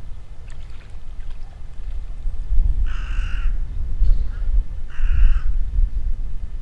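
Crow cawing twice, two harsh calls about two seconds apart, each about half a second long, over a steady low rumble.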